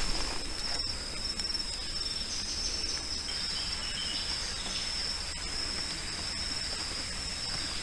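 Insects droning: one steady, high-pitched drone, with a second, higher call joining briefly a couple of seconds in.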